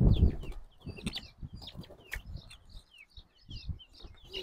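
Young chicks peeping over and over in short, high chirps. Right at the start there is a brief flutter of wings as a Westfälischer Totleger chick is let go from the hands onto the grass.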